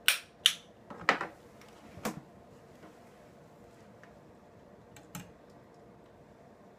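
Five sharp clicks: four within the first two seconds, then one more about five seconds in.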